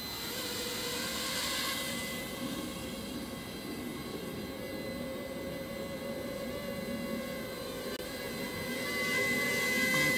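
Ladybird micro quadcopter in flight, its small electric motors and propellers giving a steady high whine that grows louder near the end as it comes close.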